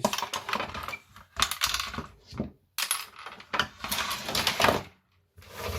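Hard plastic telephone housing and parts being handled and set down on a tabletop: several clusters of clicks, knocks and rattles, with short gaps between them.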